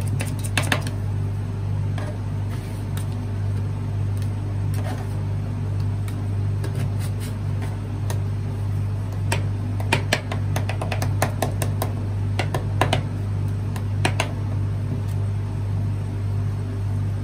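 Metal spatula blades tapping and scraping on the stainless-steel cold plate of a rolled-ice-cream machine, working strawberry marshmallow cream: a quick run of chopping taps at the start, quieter scraping through the middle, then more clusters of clicks in the second half. Under it runs the steady low hum of the ice roll machine.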